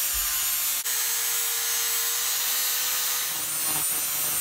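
DeWalt angle grinder grinding scale and rust off a thick steel plate: a steady high-pitched grinding hiss with a faint steady whine, briefly interrupted about a second in.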